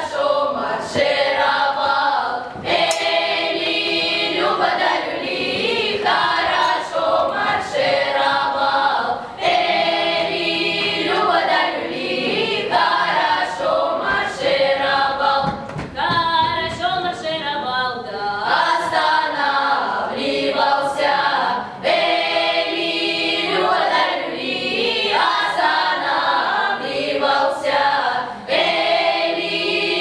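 Children's Cossack folk ensemble singing a Cossack marching song unaccompanied, boys' and girls' voices together, with short breaks between phrases.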